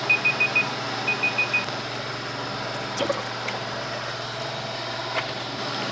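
Digital timer alarm beeping in quick groups of four, twice, signalling that the 15-minute dye bath time is up, then stopping. Later come a couple of light clinks as the stainless steel pot lid is lifted, over a steady background hum.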